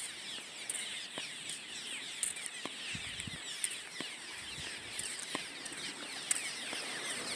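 Steady rushing hiss of a fast-moving river in flood, swollen by heavy rain, with a few faint ticks scattered through it.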